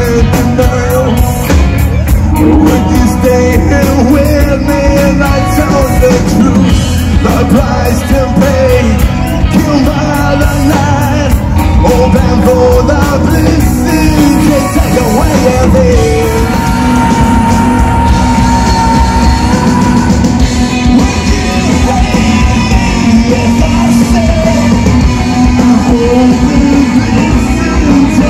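Live rock band playing loud through a PA: electric guitars, bass guitar and a drum kit, with a male singer. The cymbal strikes thin out about halfway through and a held note comes in.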